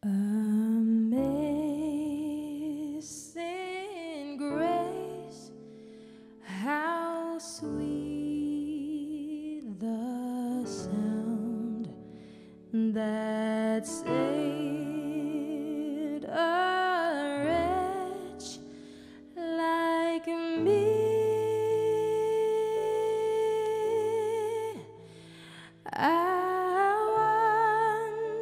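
A solo singing voice with vibrato, carrying a melody that sounds hummed or wordless, over sustained accompaniment chords. The music starts suddenly out of near silence at the beginning, with short pauses between phrases.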